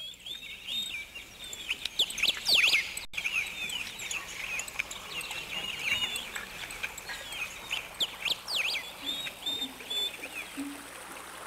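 Birds chirping and calling: a busy chorus of many short, overlapping chirps and quick up-and-down whistles, with a brief dropout about three seconds in.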